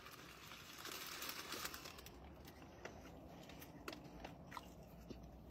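Faint eating sounds of fried chicken being bitten and chewed, with a light rustle for the first couple of seconds and a few soft clicks after.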